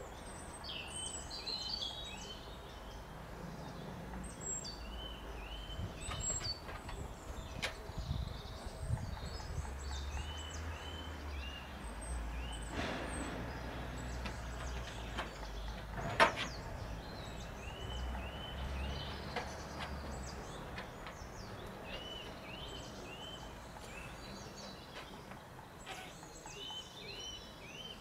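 Garden birds chirping, short high calls repeated in little groups of two to four, over a low background rumble. A single sharp click about halfway through.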